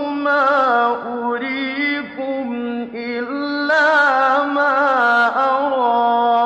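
A man's voice chanting Quran recitation in a melodic, drawn-out style: long held notes with ornamental turns, broken by a few short pauses for breath.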